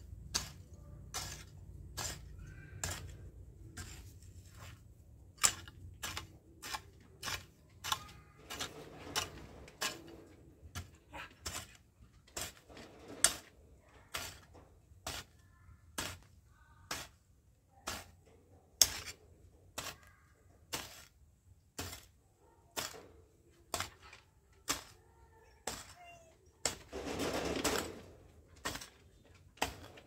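Long-handled garden hoe chopping into dry soil: a steady run of sharp strikes, roughly one every half second to second. Near the end comes a longer scraping rustle of about a second.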